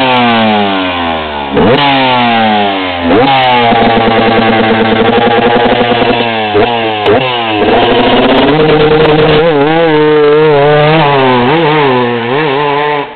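KTM enduro motorcycle engine running loud under a rider's throttle: the pitch slides down and jumps back up several times, holds steady, then wavers up and down before the sound drops away sharply near the end.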